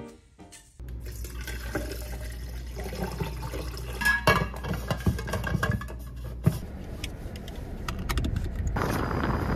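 Iced coffee poured and stirred over ice in a tall tumbler: liquid running and ice clinking against the cup. Near the end a steadier rushing noise takes over.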